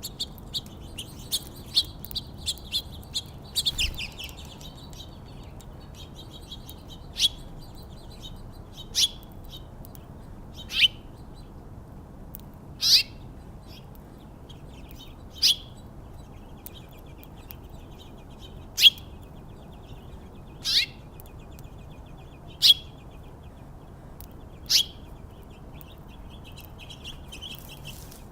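Small songbirds chirping: a quick run of short chirps in the first few seconds, then a loud single chirp about every two seconds over softer, continuous twittering.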